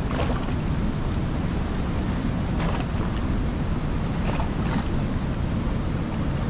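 Steady rushing of a waterfall, with wind rumbling on the microphone.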